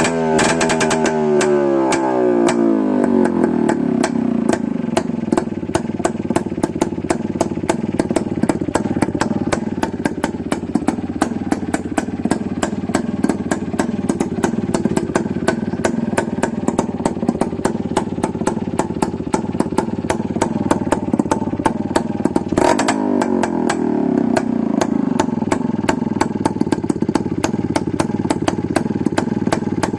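An engine idling with a steady run of evenly spaced firing knocks. Its revs fall back from a blip at the start and again after a brief rise about 23 seconds in.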